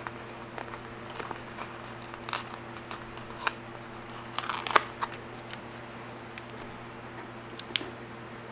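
Light paper crinkles and small clicks as a planner sticker is peeled from its sheet and pressed onto the page, busiest about halfway through, with a sharp click near the end. A steady low hum runs underneath.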